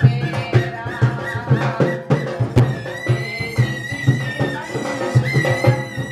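Dholak beaten in a quick, steady rhythm under a snake charmer's been (pungi) melody. The melody is reedy and wavering and settles into a long, held high note about halfway through. This is the music for a snake-charmer and cobra puppet number.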